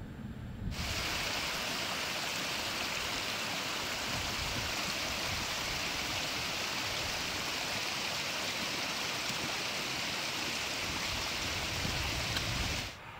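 Steady rush of running water, like a mountain stream. It starts abruptly under a second in and cuts off abruptly near the end.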